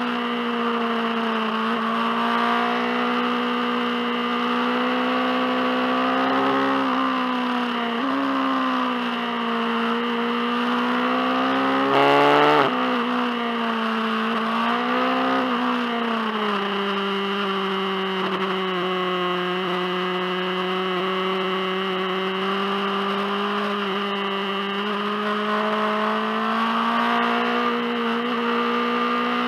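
BMW S1000RR's inline-four engine heard on board at steady mid revs, its pitch rising and dipping gently with the throttle. There is a brief louder burst about twelve seconds in, and the revs drop a little about sixteen seconds in and stay lower.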